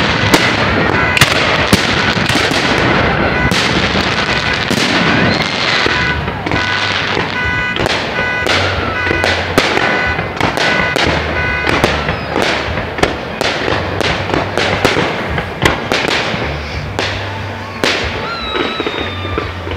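Fireworks display: aerial shells bursting in quick succession, several sharp bangs a second with crackle between them, thinning out a little near the end.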